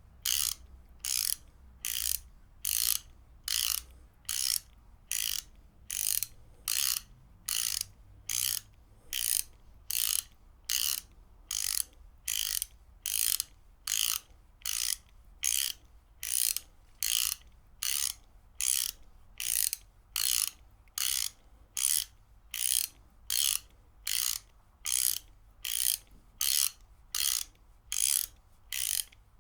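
Ratchet wrench clicking in short, even strokes, about three every two seconds: the pawl ratcheting over the gear on each swing of the handle.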